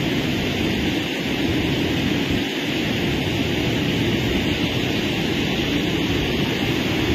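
Steady rushing of muddy floodwater pouring over a river weir and churning below it, with wind buffeting the phone's microphone.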